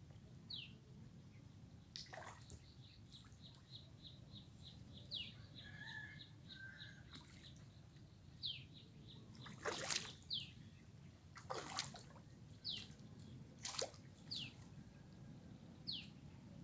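Water splashing in a few sharp bursts near the second half. Birds call over it throughout with short, high, falling chirps, plus a fast run of high pips early on.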